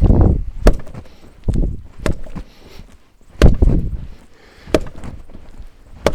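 Soft, butter-enriched brioche dough slapped down onto a work board and folded over by hand, a wet thud about six times, roughly once a second at an uneven pace.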